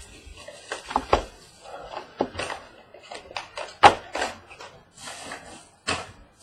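Trading-card box packaging being handled and opened by hand: a run of irregular clicks, knocks and short rustles, with the sharpest knock about four seconds in.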